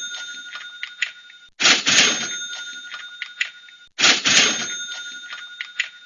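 Cash register sound effect looping: a burst of mechanical clatter, then a ringing bell that fades. It starts again about a second and a half in and about four seconds in.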